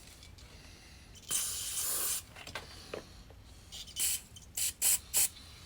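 Aerosol lubricant spraying onto seized bolts to loosen them: one hiss of about a second, then a few short squirts near the end.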